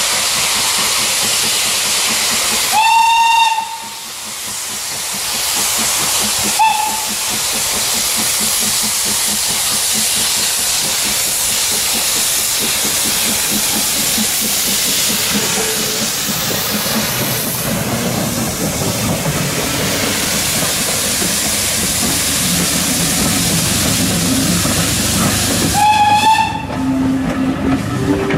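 Steam locomotive S&DJR 7F 2-8-0 No. 53809 passes with steam hissing steadily from its open cylinder drain cocks. Its whistle gives a long blast about three seconds in, a short toot a few seconds later, and another long blast near the end, as the coaches roll past.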